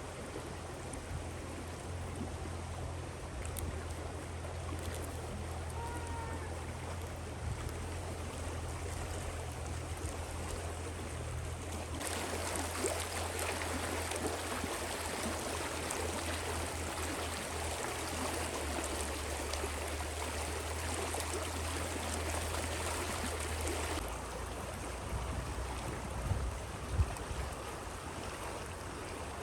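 Rushing river water, a steady hiss of flowing water over a deep low rumble. About twelve seconds in the sound becomes abruptly louder and hissier, and it drops back just as abruptly about twelve seconds later. There is a single sharp knock near the end.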